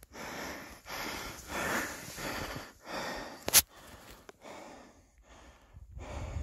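Footsteps crunching through deep snow, a regular series of soft swishes about one or two a second, with one sharp click about halfway through.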